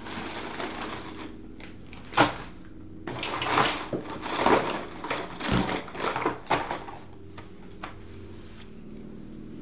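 Art supplies being rummaged through and handled: a sharp click about two seconds in, then a few seconds of clattering and rustling that dies down near the end.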